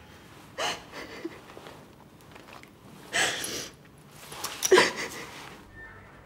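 A person's breathing in distress: three heavy breaths or sighs, about a second in, about three seconds in and just before five seconds, the last the loudest.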